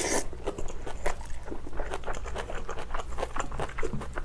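Close-miked mouth sounds of eating braised kimchi from a spoon: a short slurp as the bite goes in, then quick, even chewing with many small wet, crunchy clicks.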